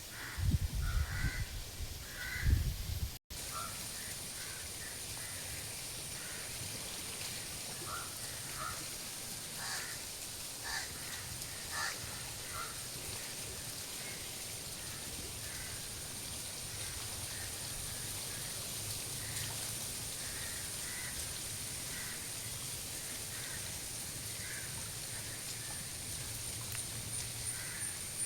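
Crows cawing repeatedly over a steady high-pitched whine that starts about three seconds in. Low thumping is heard in the first three seconds.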